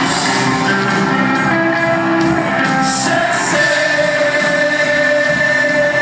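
Rock band playing live with a sung vocal, a long note held from just past the middle, heard from the crowd in a large hall.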